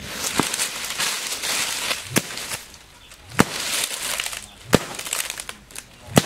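A long thin stick swished through grass and beaten down into brush and dry palm fronds: rustling swishes with five sharp cracking strikes, about one every second and a half.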